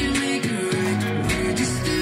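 A song with guitar playing through a SoRoo SR-588 Bluetooth soundbar.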